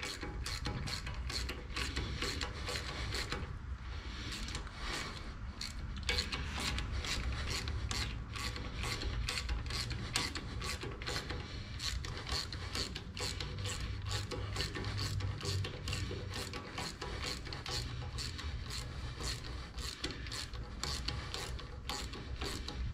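Ratchet clicking in an even rhythm, about two clicks a second, as it is worked steadily, over a low steady hum.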